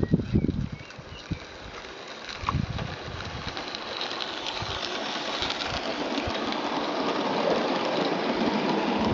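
Roundhouse live-steam Darjeeling Garratt model locomotive and its carriages running past on garden-railway track. The rattle of the train swells as it approaches and is loudest as the carriages go by. There are a few low thumps of wind on the microphone near the start.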